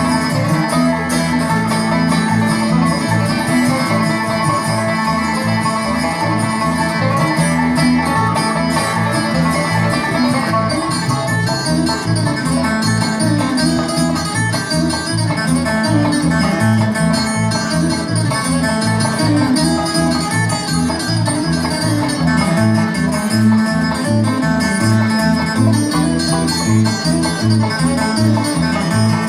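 Bluegrass instrumental music: banjo and guitar picking over a steady low beat.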